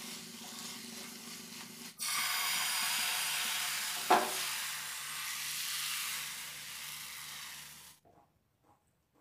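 Food sizzling in a non-stick frying pan: chicken tikka pieces with peppers and onion being stirred with a spatula, then crepe batter frying with a louder, brighter hiss. There is one sharp clack about four seconds in, and the sizzling stops suddenly about eight seconds in.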